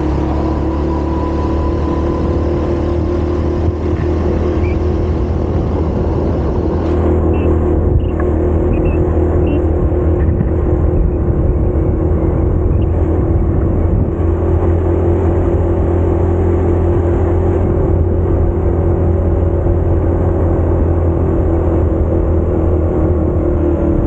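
Motorcycle engine running steadily under way, heard from the bike while riding uphill, with a steady drone of road and wind noise underneath; the engine pitch drops slightly near the end.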